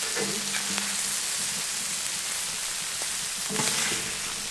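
Seafood (scallops, prawns and monkfish) sizzling steadily in butter on a hot steel fire plate.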